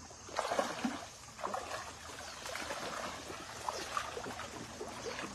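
Boots wading and splashing through a shallow stream over the steady sound of running water, with the loudest splashes about half a second in.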